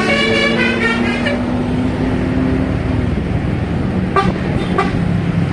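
A tourist bus's 'telolet' multi-tone musical horn playing a quick run of stepped notes that ends about a second in, over engine and road noise. A steady low tone carries on to about three seconds, and two short sharp blips come near the end.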